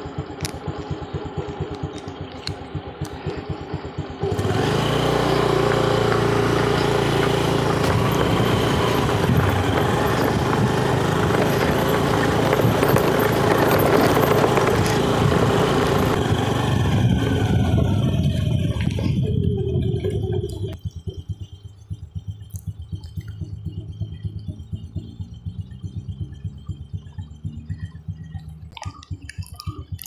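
Motorcycle engine running as it rides over a rough gravel track, with a fast, even low pulsing throughout. A louder rushing noise starts suddenly about four seconds in and eases off about twenty seconds in.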